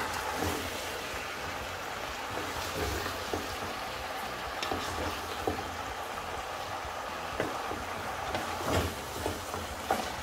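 Vegetables sizzling in a frying pan as they are stirred and tossed with a wooden spatula, with scattered light knocks of the spatula against the pan over a steady low hum.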